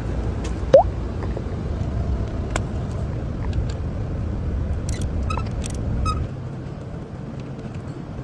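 A car engine running with a steady low rumble. A short rising squeak comes about a second in, a few light clicks follow around five to six seconds, and the rumble drops quieter soon after six seconds.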